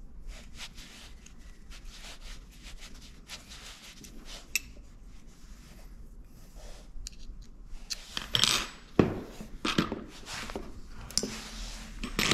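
Small metal clicks, clinks and scrapes as a hex key turns a bicycle rear derailleur's pulley bolt and the derailleur is handled over a wooden bench. The clicks are faint at first, with louder clinks clustered from about eight seconds in.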